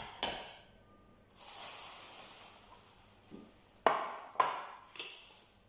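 Stainless steel frying pan knocking and clinking on a gas-stove grate: one sharp metallic knock just after the start, a soft hiss for about a second and a half, then three sharp clinks about half a second apart.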